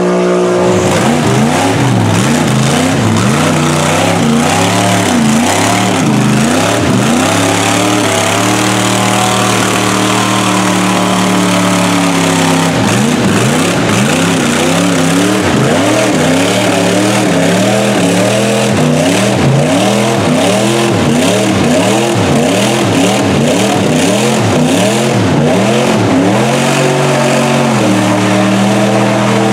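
Off-road vehicle engines revving hard and repeatedly as they plough through deep mud. The pitch swings up and down about once a second and is held steady briefly midway and again near the end.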